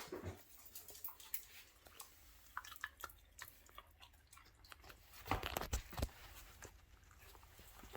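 A dog chewing and eating pieces of cooked chicken breast, with scattered small wet clicks and a louder run of chews about five seconds in.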